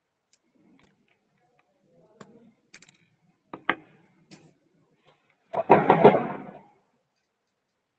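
Light clicks and taps of drawing instruments being handled on a drawing board, with one sharper click, then a louder clattering rustle lasting about a second a little past halfway.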